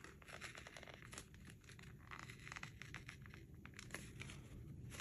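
A sheet of patterned craft paper being torn slowly by hand along a pencil line, with faint, irregular crackles and crinkling from the fibres giving way.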